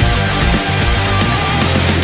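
Loud heavy rock music with electric guitar and a steady beat.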